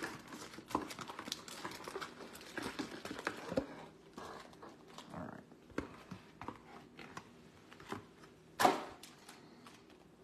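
Crinkling plastic wrap, cardboard rustling and small taps as trading card hobby boxes are opened and their foil packs handled. Busy at first, then sparser, with one louder, sharp rustle near the end.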